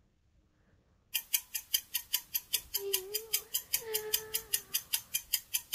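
Countdown-timer clock ticking sound effect: short, even, sharp ticks about five a second, starting about a second in after a moment of silence. A faint wavering tone sounds under the ticks midway.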